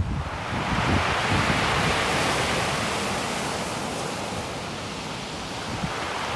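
Storm waves on the Black Sea breaking on the shore: a wave crashes in just after the start and its hissing wash slowly fades, with another building near the end. Wind buffets the microphone throughout.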